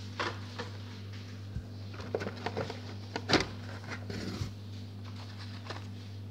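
Blister-packed Hot Wheels cards being handled and stacked: scattered light clicks and rustles of card and plastic packaging, the loudest a little past the middle, over a steady low hum.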